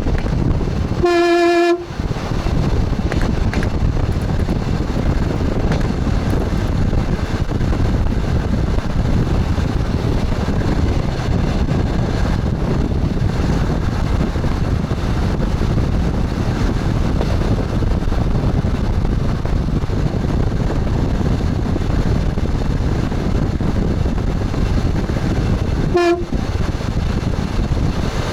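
Steady running rumble of an express train heard from its front cab, with a horn blast of under a second on one steady pitch about a second in and a brief toot near the end.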